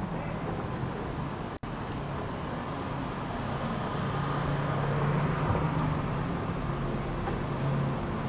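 Street ambience with a steady low engine hum of traffic, stronger in the second half. The audio drops out for an instant about a second and a half in.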